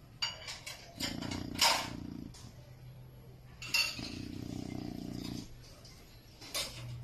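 A chow chow dog snoring in its sleep: two drawn-out snores, each about a second and a half, about three seconds apart. Several short sharp clinks or clicks sound between them, the loudest about a second and a half in.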